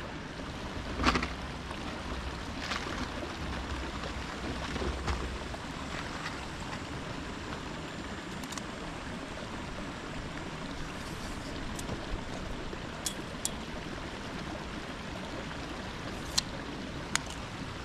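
Steady rush of flowing water, with a few light clicks and knocks scattered through it.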